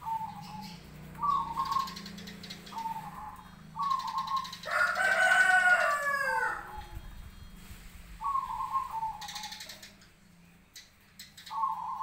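Caged zebra doves (perkutut) cooing in short repeated phrases, calling back and forth. About halfway through, a rooster crows once, louder than the doves, its call falling in pitch at the end.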